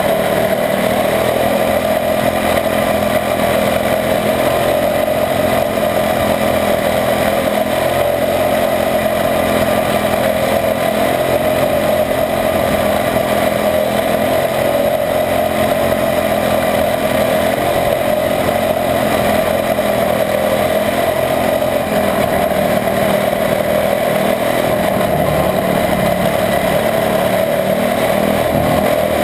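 Quarter midget race car's single-cylinder Honda engine running steadily at race speed, heard close up from a camera mounted on the car.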